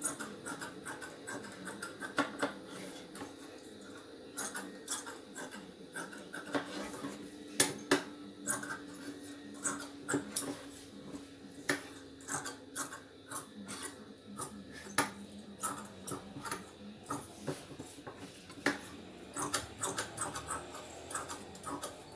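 Tailor's scissors snipping through blouse lining fabric, a string of irregular short cuts and clicks.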